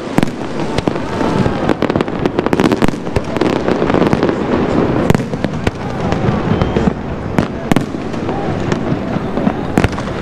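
Aerial fireworks bursting in quick succession: a continuous run of sharp bangs and cracks.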